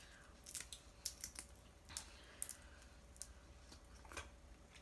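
Snow crab meat and shell being picked apart by hand: faint, scattered little clicks and crackles, several in a row, with no steady sound between them.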